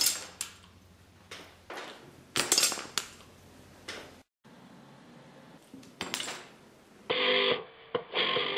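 Subbuteo table football being played: sharp clicks and clatters of the small plastic figures and ball being flicked and knocking into each other and the goal, several separate knocks over the first few seconds. A short burst of guitar music comes in near the end.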